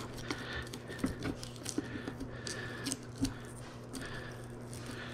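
Putty knife scraping a dishwasher's inner door panel clean: a run of irregular light scrapes and ticks.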